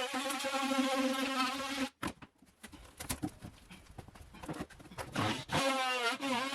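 A handheld power tool buzzing at a steady, slightly wavering pitch, cutting off abruptly about two seconds in. Scattered clicks and knocks follow, and the buzz starts again near the end.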